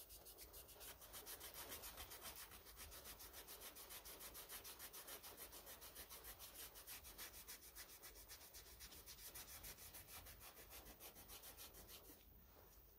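Green abrasive scouring pad scrubbing the rusty steel of a small lathe's carriage: faint, quick back-and-forth strokes, about four a second, that stop about a second before the end. The pad is clearing rust softened by a rust-dissolver gel, and rusty brown still shows underneath.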